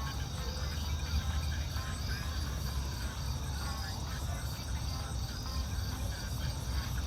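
A steady chorus of insects trilling, with an even, repeating pulse, over a low constant rumble.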